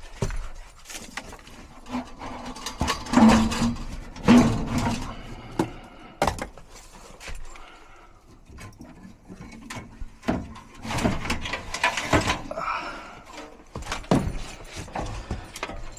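Irregular knocks, clicks and clatter of metal parts and hand tools as screws are taken out and a furnace blower assembly is worked loose from its cabinet.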